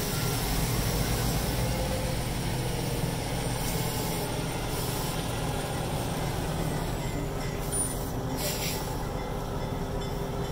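Steady low rumble of diesel engines from a switcher locomotive and a semi truck pulling up at a road crossing, with a short hiss of air about eight and a half seconds in.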